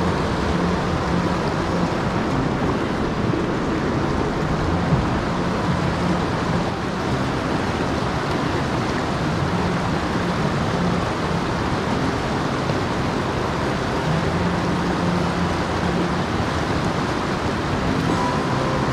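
River water rushing and churning through a channel of boulders, a steady rush.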